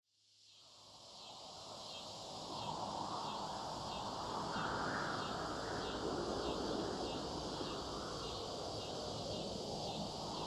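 Open-air field ambience fading in over the first two seconds: a steady high insect chorus over a low, even background noise.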